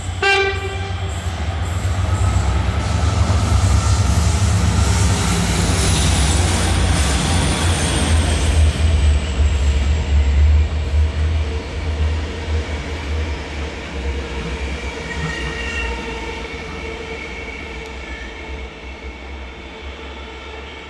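A brief horn note, then the deep rumble of a pair of Renfe class 334 diesel locomotives and the rolling of their passenger coaches going past, loudest in the first half and fading steadily after about twelve seconds.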